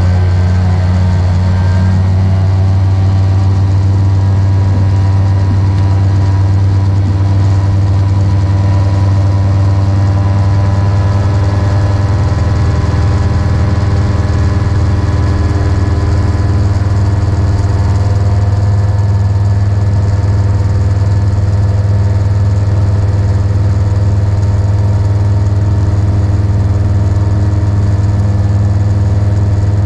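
Magni M24 gyroplane's engine and pusher propeller running at takeoff power through the takeoff roll and climb-out, a loud steady hum heard from inside the cockpit.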